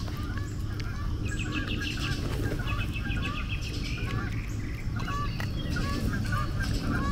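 A flock of domestic fowl calling: many short, hooked calls repeated over and over, with a quick chattering run of calls from about a second in, over a steady low rumble.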